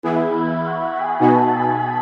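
Background music: soft synthesizer chords over a sustained high note, changing chord about a second in.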